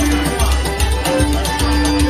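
Traditional session music in a pub: a cajón-style wooden box drum played with brushes keeps a steady beat of deep thumps and brushed strikes, under a tune with long held notes.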